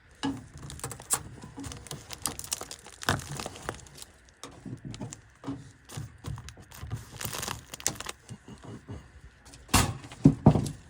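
Handling noises of large plastic cable ties being joined and worked around a flexible duct: scattered clicks, rustles and light knocks, with a short rasp about seven seconds in and a few sharper knocks near the end.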